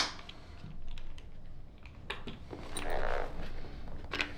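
Small tools being handled: a sharp click at the start, then light scattered clicks and rustling as the items are put away and the next one is taken out of the bag's pouch.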